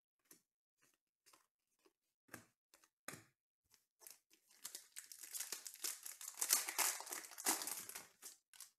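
A few light scattered clicks, then a foil wrapper of a 2020 Panini Contenders Baseball card pack being torn open and crinkled for several seconds, loudest near the end.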